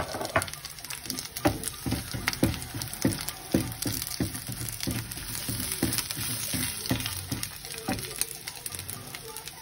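Wooden spatula stirring onions and green chillies in oil in a frying pan, knocking and scraping on the pan about twice a second, over a light sizzle.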